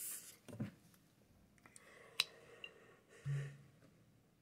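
A breathy exhale of smoke, followed by faint handling noises: a soft knock about half a second in and a sharp click about two seconds in. Another short breath with a brief low hum follows near the end.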